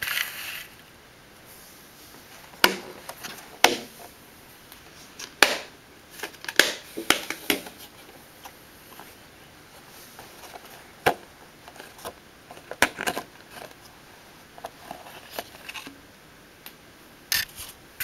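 Scattered sharp clicks and knocks of a glass tarantula enclosure's lid being handled and opened, some single, some in quick clusters of two or three.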